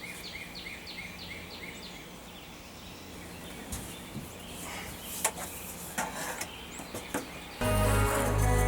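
A bird calling a quick run of repeated chirps, about four a second, which stops after about two seconds; then a few scattered knocks and clicks. Background music starts abruptly near the end.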